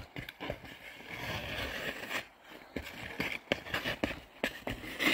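Ice skate blades scraping and hissing across a backyard rink as a child skates, with scattered clicks from the strides. A louder scrape comes near the end.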